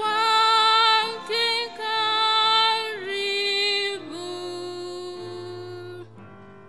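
A woman singing the end of a hymn in slow, long held notes, the last one fading about six seconds in. Faint low sustained tones sit under the voice.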